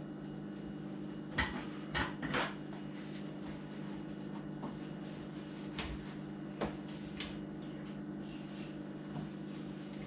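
Hard plastic juicer parts being handled and set down: a few sharp knocks and clacks, three close together about a second and a half in and a few more later on, over a steady low hum.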